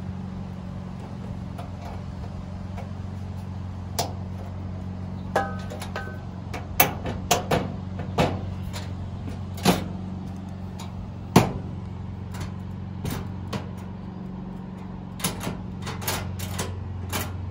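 Scattered knocks and clicks on the sheet-steel cabinet of a gas grill cart as magnetic door catches are fitted, a rubber mallet tapping them into place, the loudest knock about halfway. Near the end comes a run of lighter clicks as the cabinet doors are worked against the catches. A steady low hum runs underneath.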